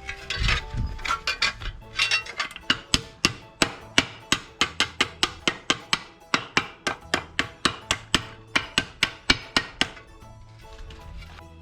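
A hammer striking sheet steel, about three to four blows a second for roughly eight seconds, each with a short metallic ring, as a steel repair patch is shaped. Background music plays underneath.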